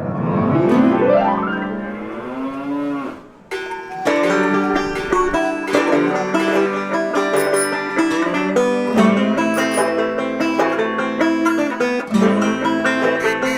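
Background music of plucked strings. It opens with a long sliding tone that rises and falls over about three seconds, then settles into a steady run of quick plucked notes over held chords.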